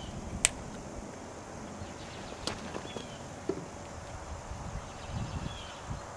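A few faint, sharp plastic clicks and taps as a White Labs liquid yeast vial is unscrewed and tapped over an open plastic fermenting bucket to pitch the yeast, the sharpest click about half a second in. Faint short high chirps sound now and then.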